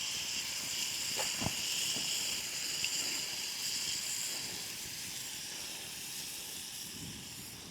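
Hot pan of curry sizzling and hissing as coconut milk is poured in, slowly quieting as the liquid cools the pan. A single knock about a second and a half in.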